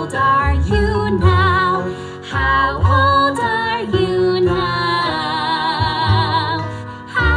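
Background music: a song with a singing voice over a bass line, with a long wavering held note about five seconds in.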